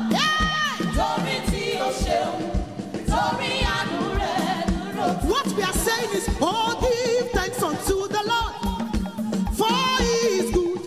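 Live gospel praise singing: a woman's lead voice with backing singers, over a band with a steady drum beat.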